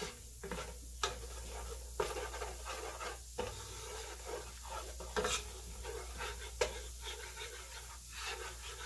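Butter and minced garlic sizzling gently in a nonstick pot while a wooden spoon stirs through them, with a few brief scrapes of the spoon against the pan.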